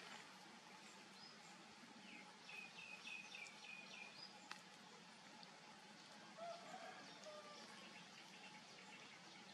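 Faint outdoor ambience with a bird calling: a quick run of about six short chirps from two to four seconds in, a single click, then a lower call about six and a half seconds in.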